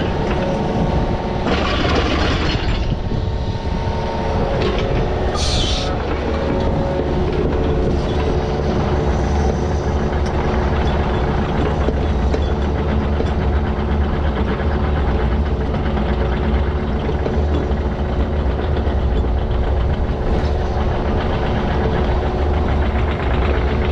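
Diesel engine of a digging machine running steadily, with a short rush of noise about two seconds in and a brief high hiss near six seconds.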